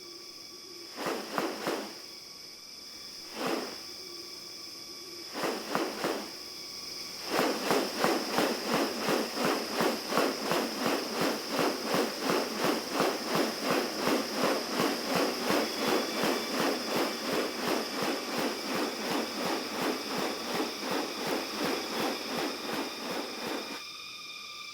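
Rainforest insects droning in steady high tones. Over them comes a rhythmic rasping: a few short bursts at first, then a continuous run at about three pulses a second from about seven seconds in, stopping shortly before the end.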